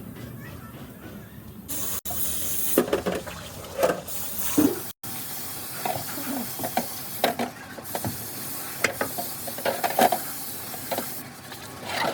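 A loud, steady spraying hiss starts about two seconds in and stops about a second before the end, with irregular knocks and clatter on top. Before the hiss, a faint quick regular ticking of machinery.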